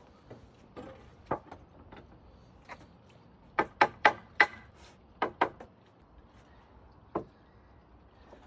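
Pallet-wood slats knocking against each other as they are handled and stacked: about a dozen sharp wooden knocks at uneven intervals, the loudest a quick run of four about three and a half seconds in.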